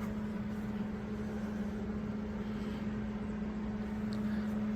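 Steady machine hum at one constant pitch, with a faint noise floor under it.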